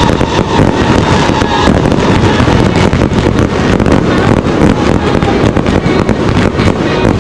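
A fireworks display going off in a dense, continuous salvo: rows of ground-launched comets and aerial shells firing and bursting, with many sharp bangs and crackles close together.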